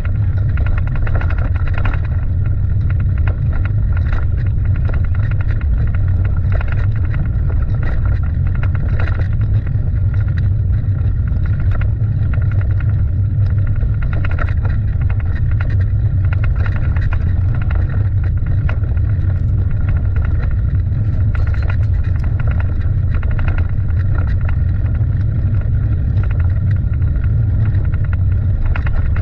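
Loud, steady low rumble of wind buffeting a moving microphone, with scattered short knocks and rattles throughout.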